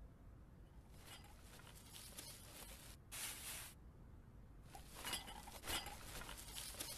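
Faint rustling and light scattered clicks, with a short burst of hiss about three seconds in.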